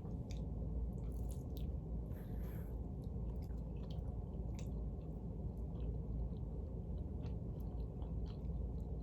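A person chewing a mouthful of pizza close to the microphone, with scattered small wet mouth clicks, over a steady low background hum.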